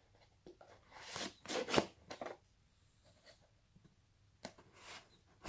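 Box cutter slicing through packing tape on a cardboard box: a few short scratchy strokes, the loudest near the end.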